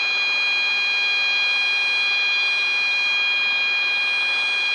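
Robinson R22's low rotor RPM warning horn sounding as a steady high-pitched tone over an even hiss of rotor and engine noise. It is sounding because the rotor RPM has been rolled down to about 90% with the governor off, below the horn's threshold.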